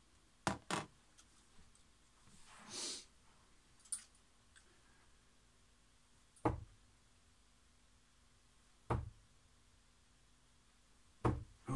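Three darts thudding one after another into a bristle dartboard, about two and a half seconds apart. Before them come a few light clicks and a breath.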